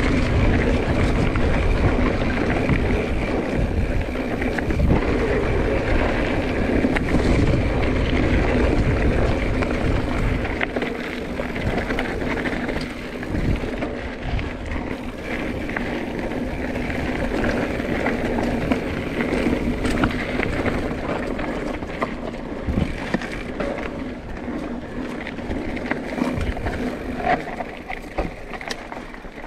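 Mountain bike riding singletrack: tyres rolling over dirt and roots, with the bike rattling and clicking over bumps and wind rumbling on the microphone. The rumble eases after about ten seconds.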